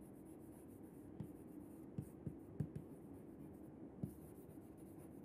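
Chalk writing on a chalkboard: faint scratching of the letters with a few light taps as the chalk strikes the board.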